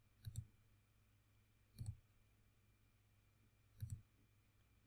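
Computer mouse button clicked three times, about two seconds apart, each click a quick faint double tick of press and release, as wire points are placed in schematic software.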